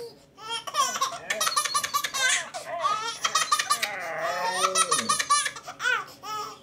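A baby laughing in rapid, repeated belly laughs, with an adult woman laughing along; the laughter trails off into a few short bursts near the end.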